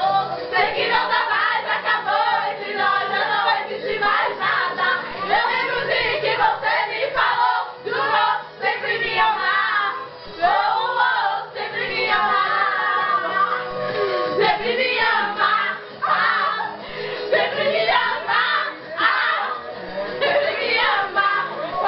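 A group of voices singing together, many voices overlapping throughout.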